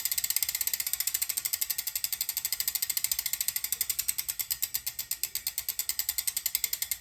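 Rear freehub of a Reynolds ATR-x carbon wheel clicking as the wheel coasts, a rapid train of pawl clicks that gradually slows as the wheel loses speed.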